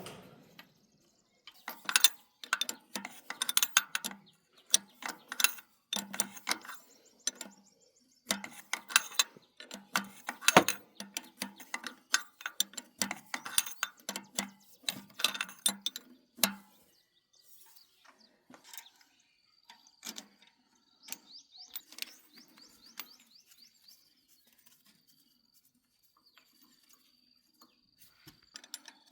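Rapid trains of sharp metallic clicks and clinks from hand tools working on a machine, dense for most of the stretch and then thinning to scattered faint ticks, with a thin, steady high tone near the end.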